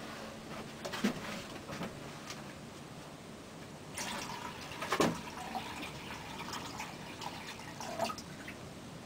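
Water poured from a cup into a reptile tank, splashing for a few seconds from about four seconds in, after a couple of light knocks about a second in.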